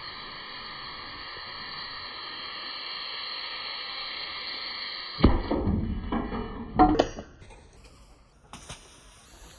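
Lithium iron phosphate battery cell venting with a steady hiss, then a sudden loud rush of sound about five seconds in that lasts nearly two seconds, with a sharp peak near its end. A few faint clicks follow.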